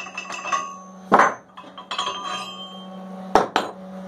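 Mild steel die plates clinking and ringing against the angle-iron frame of a blacksmith's guillotine tool as they are handled and slid in and out of its slot: a run of light clinks, a heavier knock about a second in, and two sharp clinks close together near the end. A steady low hum runs underneath.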